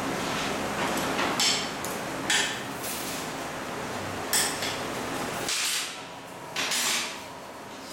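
Steel rods and the hand levers of a manual bending jig clinking and clanking against its steel plate as the rods are set in place and bent by hand: a series of separate sharp metallic strikes over a steady background hiss that drops away about halfway through.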